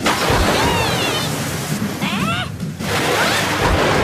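A steady rush of splashing water, with music underneath. A girl's voice gives short, high gliding cries, once near the start and again about two seconds in.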